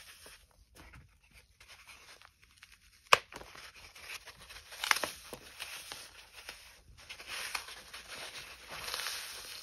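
Dry, unsoaked floral foam sticks coated in chalk powder crunching and crumbling as gloved hands crush them. There is a sharp snap about three seconds in, another crack near five seconds, and denser crunching near the end.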